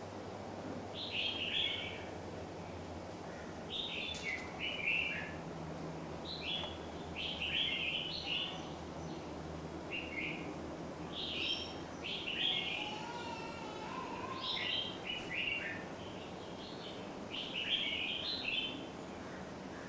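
A bird singing short, chirpy phrases over and over, one every two to three seconds, over a steady low background hum.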